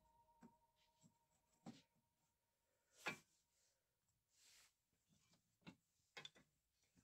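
Faint, scattered clicks and knocks of small wooden toy wheels being picked up and set down on a scroll saw's table, the clearest about three seconds in.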